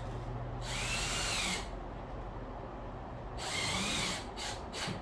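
Power drill running in two short bursts, each whining up in pitch and back down, as screws are driven to fasten a panel.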